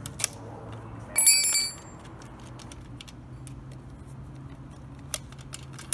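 A steel chainsaw combination wrench set down on asphalt: one bright metallic clink that rings briefly about a second in, followed by a few small clicks near the end.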